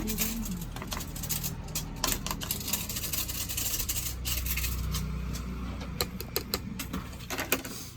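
A utensil clicking and scraping irregularly against a pan as a mixture is stirred, over a steady low hum.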